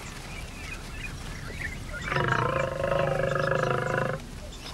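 A large carnivore's call at the kill: one harsh, pitched call with a fast rippling flutter, lasting about two seconds and starting about two seconds in.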